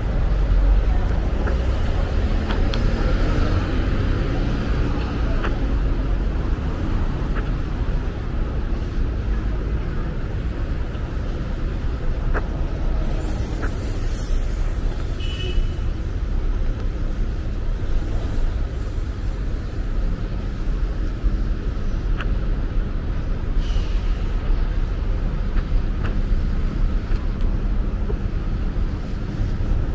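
Steady city road traffic: the continuous rumble of cars passing, with a brief high hiss about halfway through.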